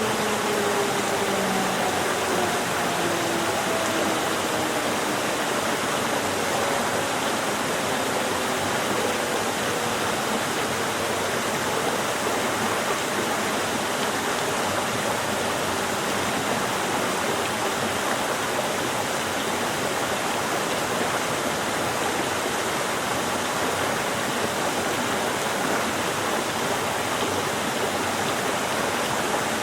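Gorge stream rushing steadily over rocks. Over the first several seconds the tail of a siren, taken for a time signal, falls slowly in pitch and fades away under the water.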